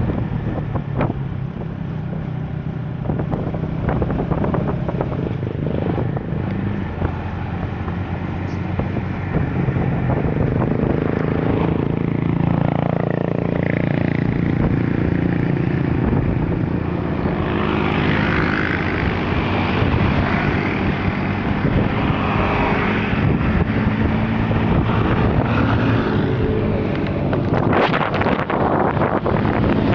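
Steady hum of a moving road vehicle: low engine drone with road and wind noise throughout.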